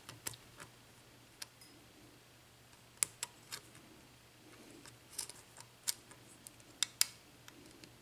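Faint, irregular small metallic clicks and taps of a lock pick working the pin stacks of a Schlage mortise cylinder under tension during single-pin picking, the clicks coming in scattered groups with the loudest a few seconds in and near the end.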